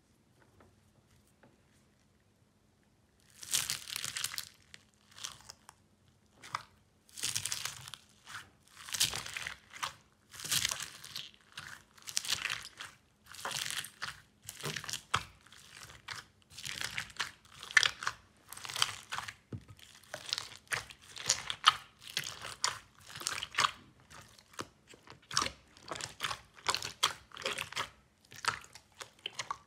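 Slime mixed with foam beads squeezed and kneaded by hand: irregular crunchy crackling squishes, starting about three seconds in and coming roughly once or twice a second.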